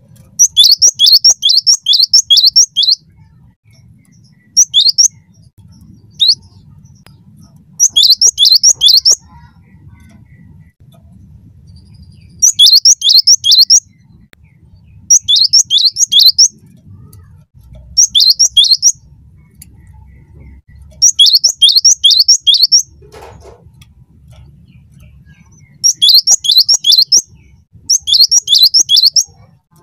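Cinereous tit (gelatik batu) singing loudly in repeated bursts, each a quick run of four to six sharp, downward-sliding notes, with a pause of a second or more between bursts. A faint low hum lies underneath.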